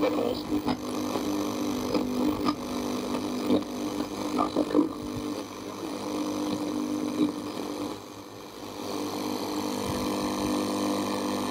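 A Sony CXA1619 radio receiver board's speaker giving out a steady humming drone with static on one of its AM bands, with crackles and clicks as the board is handled and tuned. The drone drops out briefly about two-thirds of the way through and comes back weaker.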